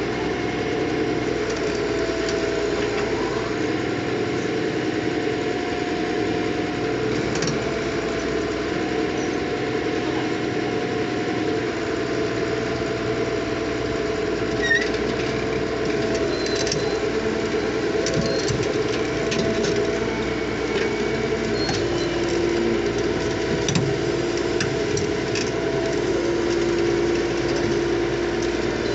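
Diesel engine of a heavy earthmoving machine running steadily, with a slightly wavering whine and a few short sharp knocks, two of them louder, about halfway through and again near the end.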